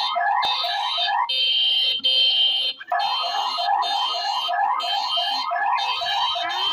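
Emergency alert system earthquake-warning alarm: rapid rising chirps, about four a second, over a steady high tone. The chirps break off for about a second and a half partway in, then resume.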